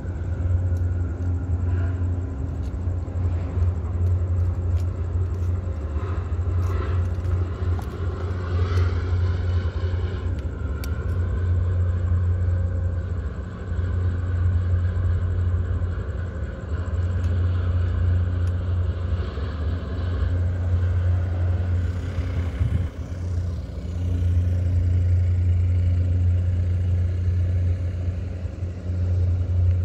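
A steady, loud low engine-like rumble with a faint hum above it, swelling and easing slightly, with a brief rising and falling whine around the middle.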